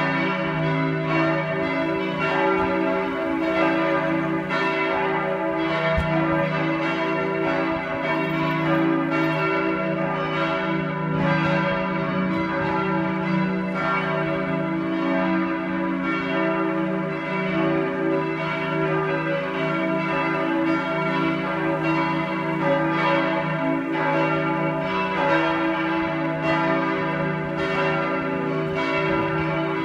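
Church bells pealing: several bells of different pitches ring together continuously, their overlapping strikes coming about every half second over a steady hum.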